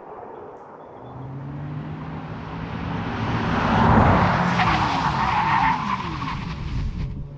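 Porsche Taycan 4 Cross Turismo electric car at speed: tyre and road noise with electric motor whine build to a peak about four seconds in, then the whine falls in pitch. The sound cuts off abruptly just before the end.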